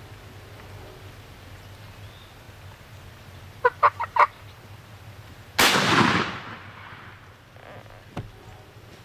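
Eastern wild turkey gobbling close by: a quick rattle of four notes. About a second and a half later comes a single loud shotgun blast that dies away, and near the end there is one sharp click.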